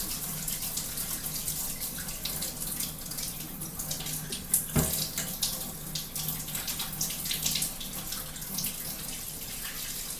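Kitchen faucet running into the sink as hands are washed under it, a steady splashing hiss. A single sharp knock sounds about halfway through.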